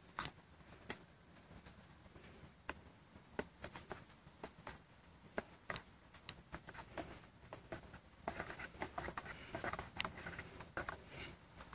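Small metal spoon stirring coffee in a metal cup, clinking lightly against the cup's side in irregular ticks that come faster near the end.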